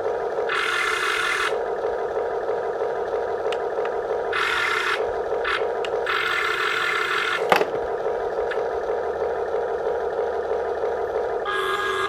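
Small electric motors of a radio-controlled backhoe whirring steadily, with a louder, higher whine coming and going three times as it works and one sharp knock about two-thirds of the way through.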